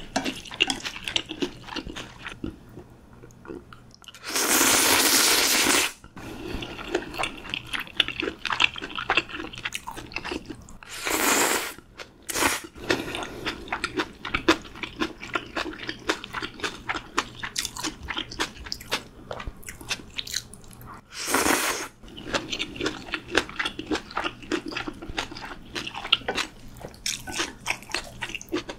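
Close-up eating sounds: chewing and crunching on takeout pork belly and spicy stir-fried noodles, with many small wet clicks. Several louder rushing sounds a second or two long break in, the longest about four seconds in.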